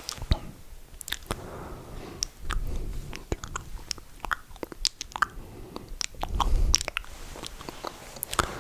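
Close-miked ASMR mouth sounds: wet lip smacks and tongue clicks in an uneven stream, with two longer breathy puffs about two and a half and six and a half seconds in.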